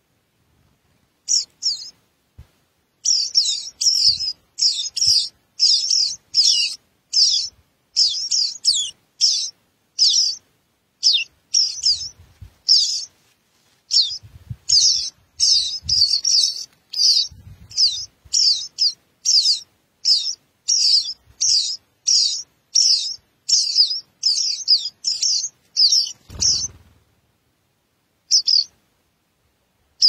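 Songbird nestlings begging from a ground nest, with rapid high-pitched chirps repeated about twice a second that stop suddenly near the end. A dull low bump is heard as the chirping stops.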